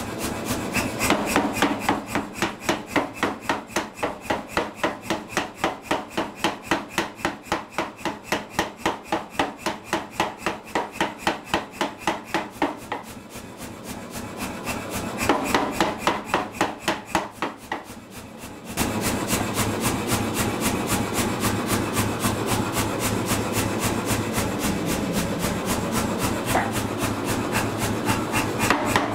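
Say-Mak self-contained air power hammer striking a glowing piece of heavy-wall steel tubing on its dies in rapid, evenly spaced blows, over the steady hum of the hammer's motor. About 19 s in, the blows turn louder and faster and keep up a steady run.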